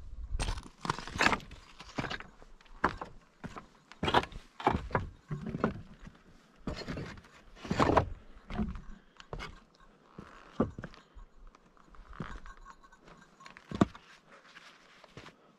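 A hiker's footsteps on a mountain trail: irregular steps and scuffs, roughly one every half second to second, at an uneven pace.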